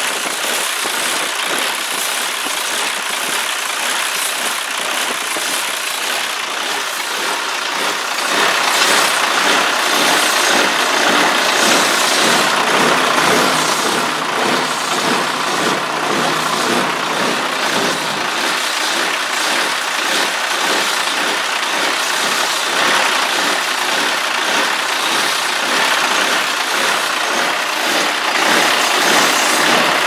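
Cummins L10 inline-six diesel idling with its rocker cover off, a steady run that grows a little louder about eight seconds in.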